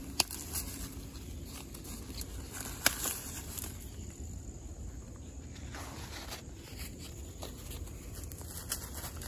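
Dry corn stalks and husks rustling as ears of dried Hickory King dent corn are pulled off by hand, with two sharp snaps, one just after the start and one about three seconds in. Footsteps crunch on wood-chip mulch later on.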